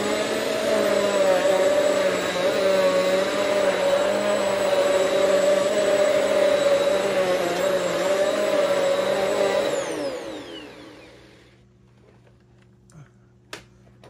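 Hoover Swivel XL Pet bagless upright vacuum running steadily on carpet, its brushroll driven by a newly fitted belt. About ten seconds in it is switched off and the motor whine falls away as it spins down. A couple of light clicks follow.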